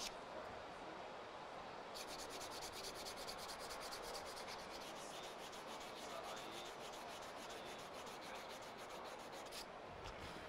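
Sandpaper on a wooden holder being rubbed by hand along a carved wooden spoon: quick back-and-forth scratchy strokes. They pause for the first two seconds, then go on steadily until shortly before the end.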